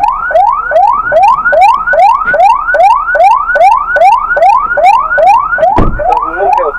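Police car siren in a fast yelp: a rapid run of rising wails, about three a second, with one brief low drop in pitch near the end.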